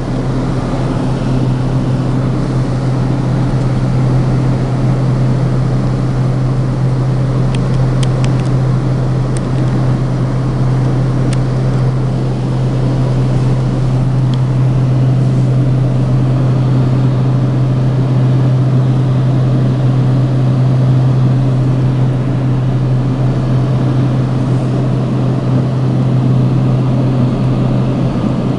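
Cabin noise of a Cessna Conquest twin turboprop in flight: a steady deep propeller drone with a rush of engine and airflow noise over it, heard from inside the cabin.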